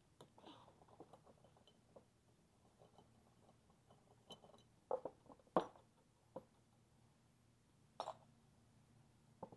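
Scattered light clicks and taps of small parts being handled, the sharpest a little past halfway and another about eight seconds in, over a faint steady hum.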